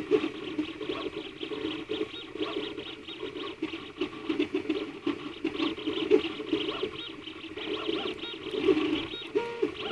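Flashforge Creator 3D printer's stepper motors whining as the print head moves to lay down a layer, in short tones that jump in pitch with each change of direction.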